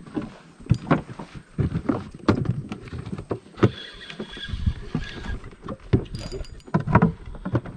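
Irregular knocks and thuds of a paddle and gear against the hull of a small paddled boat.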